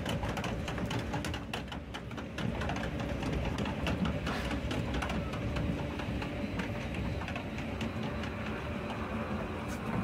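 Water-ride lift-hill conveyor carrying the boat up, with many irregular clicks and rattles over a steady mechanical hum.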